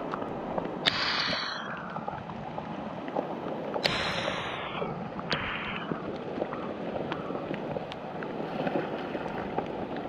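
Creek water flowing steadily, with three short, sharp bursts of noise about one, four and five seconds in, and scattered small clicks.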